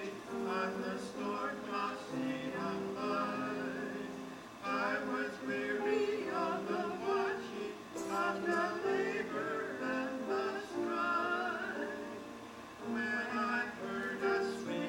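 Gospel music played live: a moving melody over held chords, with short lulls between phrases.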